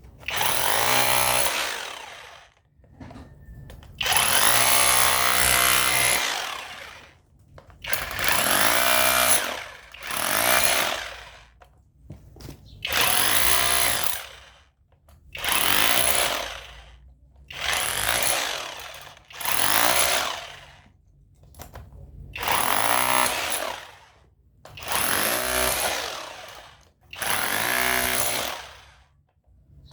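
Cordless Dagmara rotary hammer breaking up cast concrete, run in about eleven short bursts of a second or two, each dying away as the trigger is released.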